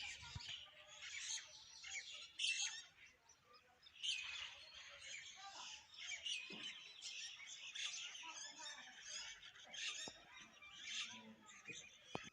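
Many small birds chirping and twittering together in a continuous overlapping chorus of short, high calls and trills, with a brief lull about three seconds in.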